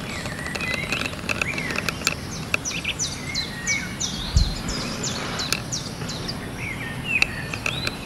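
Birds singing, with runs of quick falling chirps repeated many times over a steady outdoor hiss. A single low thump about four seconds in.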